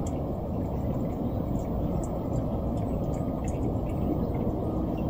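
Steady low rumble of outdoor background noise, with a few faint high ticks scattered through it.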